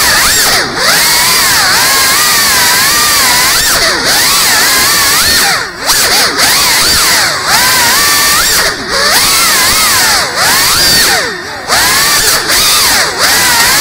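FPV drone's motors and propellers whining loudly, the pitch rising and falling as the throttle changes, with the sound dropping briefly about ten times, longest near the end.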